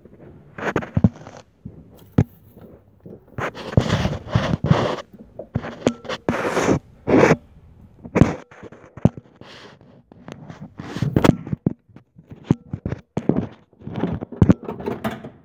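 Irregular scraping, rubbing and knocking as a hand and a handheld camera are worked in among the hoses and brackets of a cramped engine bay, reaching for the hidden lower bolt of the thermostat housing.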